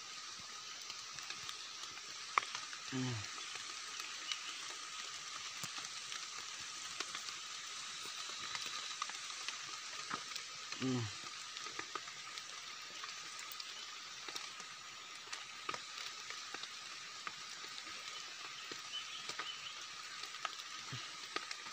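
Steady background hiss with scattered soft clicks and rustles as wild mushrooms are picked by hand from forest soil. Two brief low vocal sounds, like a murmur or grunt, come about three seconds and eleven seconds in.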